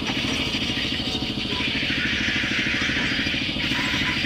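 Sawmill vertical band saw running and cutting through a log: a steady mechanical drone with a fast, even low pulsing and a continuous hiss from the blade in the wood.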